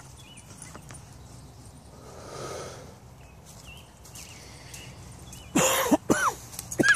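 A soft, long breath out about two and a half seconds in, then a man coughing hard three times near the end.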